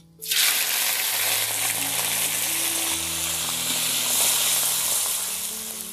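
Dried rice anchovies dropped into hot oil in a wok, bursting into a sizzle at once and frying steadily while stirred with a spatula; the sizzle eases off a little near the end.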